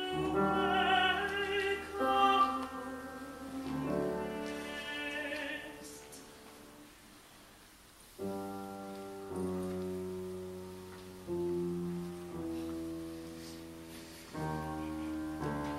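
Baroque opera music: a voice singing with vibrato over piano accompaniment, fading out about six seconds in. Piano chords then carry on alone, each struck sharply and left to ring, every second or two.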